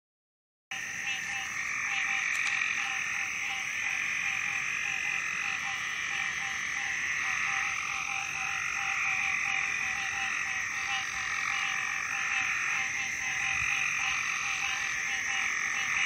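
Dense chorus of frogs calling over one another at night, a steady, unbroken wall of calls with a lower call pulsing regularly beneath it. It begins abruptly just under a second in.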